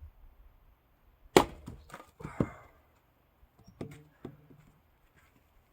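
Axe splitting an oak log: one loud sharp crack about a second and a half in, then two more wooden knocks close after it, and two lighter knocks near four seconds.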